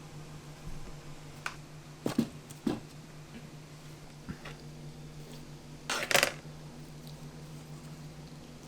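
Kitchen clatter of metal utensils and dishes: a few separate knocks and clinks, then a louder run of clattering about six seconds in, over a steady low hum like a ventilation fan.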